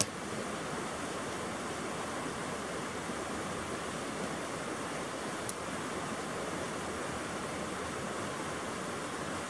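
Steady rushing of a mountain creek, with a short sharp click at the very start.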